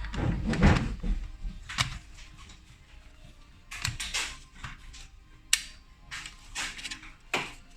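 Irregular sharp clicks and knocks of a laptop's plastic casing and parts being handled, with a louder low thump and rustle in the first second.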